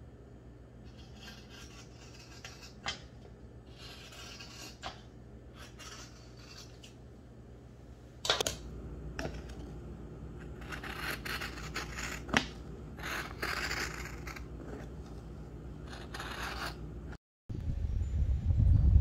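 Fabric scissors cutting through a striped cotton-knit top in a long series of separate snipping strokes. Near the end the snipping stops abruptly and gives way to a louder low rumble.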